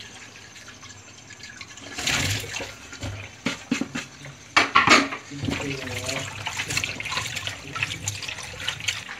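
Tap water running into a steel kadhai in a steel sink, with cut jackfruit pieces tipped off a wooden cutting board clattering and splashing into it about two to five seconds in, loudest near five seconds. Then hands swish and rub the pieces in the water.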